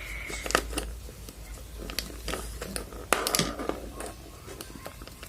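Small items and packaging being handled by hand: scattered clicks and taps, with a short stretch of rustling near the middle.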